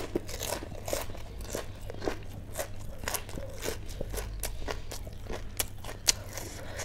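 Crisp pani puri shells crunching and cracking as they are bitten, chewed and handled close to the microphone: a scatter of small crackles, with one sharper crack about six seconds in.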